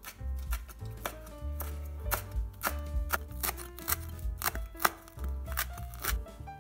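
Kitchen knife chopping fresh herbs on a wooden cutting board: a series of sharp, irregularly spaced blade strikes against the board, with background music underneath.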